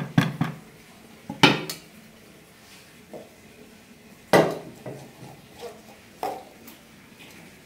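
Kitchen utensils clattering: a wooden spoon knocking on the rim of a plastic bucket, then aluminium cookware clanking as it is set down. There are several separate knocks, the loudest about one and a half seconds in and another ringing clank about four and a half seconds in.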